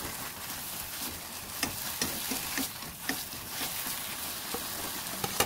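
Battered fried oysters being tossed quickly in an oyster-sauce glaze in a hot nonstick pan: steady sizzling, with scattered sharp clicks of chopsticks and a spatula against the pan.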